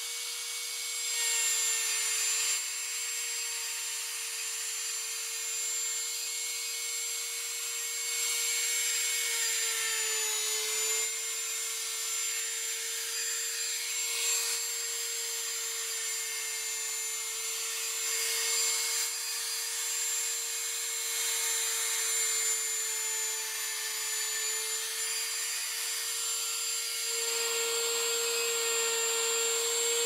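Electric wood router running with a steady high whine while its bit cuts a wooden guitar fretboard fed by hand. The pitch sags briefly under load about ten seconds in.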